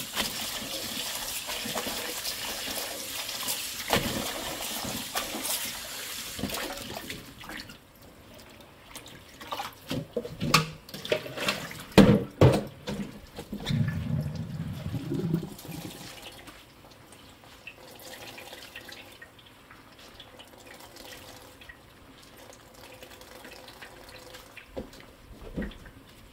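Tap water running into a glass bowl of blanched spinach in a stainless steel sink as the spinach is rinsed; the flow stops about seven seconds in. Then come sharp clinks and knocks as the bowl and a stainless mesh colander are handled, and a dull low thud, followed by quiet handling of the wet spinach.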